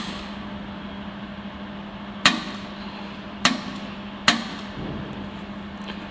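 Pulsed jewellery laser welder firing single shots: three sharp snaps, about two, three and a half and four and a quarter seconds in, over the machine's steady low hum.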